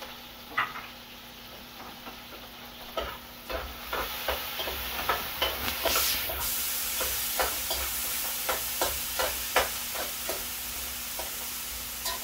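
Spoon stirring and knocking against a large metal pot of chopped onion, garlic, tomato and curry peppers frying in oil, with a steady sizzle; the knocks come irregularly, about one or two a second, starting a few seconds in. A brief louder hiss comes about six seconds in.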